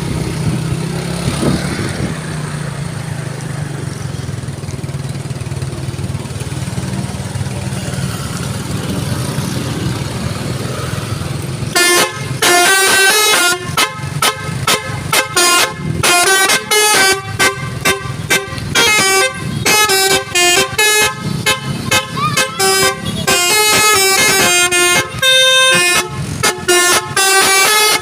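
A steady low hum for about the first twelve seconds, then a Basuri telolet musical horn starts up loudly, playing a tune in short stepped notes that switch on and off in quick succession.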